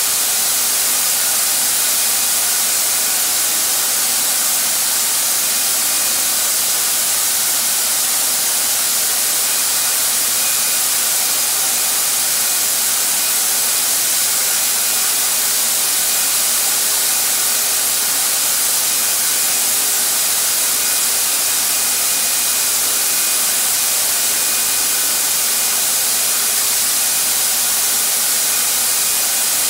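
Harbor Freight HVLP turbine paint sprayer running, blowing a constant loud rush of air through its hose and spray gun during base-coat spraying, with a faint high whine from the turbine.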